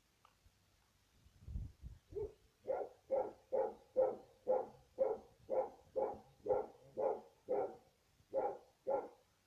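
A dog barking steadily, about two barks a second in an even rhythm, starting a couple of seconds in.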